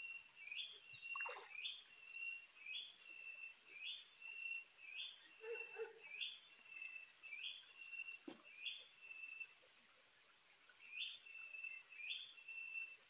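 A bird calling over and over, about every two-thirds of a second: each call a quick upward flick followed by a short level note, pausing briefly near the end. Under it runs a steady high insect drone, and there are a few faint knocks.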